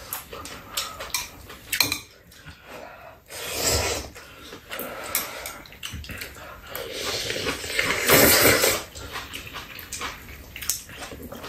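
Eating sounds of two people having ramen: metal chopsticks clicking against bowls, with noodles slurped in two longer stretches, about a third of the way in and again past the middle.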